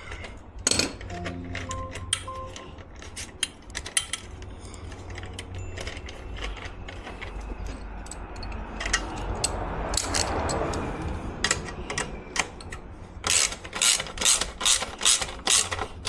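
Socket ratchet clicking as bolts on a motorcycle exhaust system are tightened: scattered clicks and tool handling at first, then a fast run of ratchet clicks near the end.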